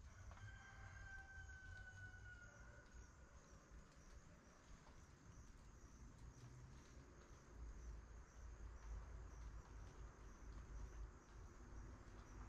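Near silence: faint outdoor morning ambience with a low rumble and a steady high hum. About half a second in, a faint held tone sets in, sliding slightly down in pitch for about two and a half seconds.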